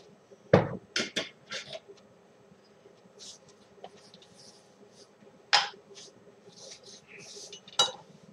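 Kitchen items set down and moved about on a wooden cutting board and counter: several sharp knocks and clunks, a quick cluster at the start, another about halfway and one near the end, with soft swishing of a sponge wiping the board between them.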